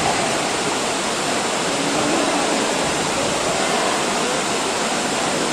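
Steady, loud din of a crowd of spectators and players shouting and talking at once in a hall, with no single voice standing out.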